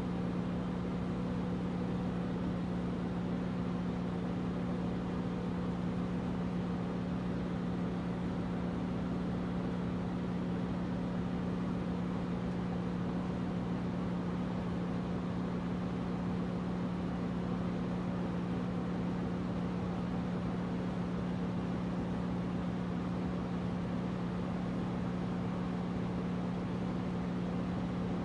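Air conditioner running: a steady low hum over an even hiss that does not change.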